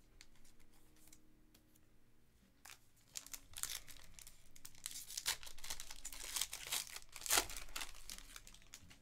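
Faint handling of trading cards, then, from about three seconds in, the foil wrapper of a Panini Recon basketball card pack being torn open and crinkled by hand, with the sharpest rip near the end.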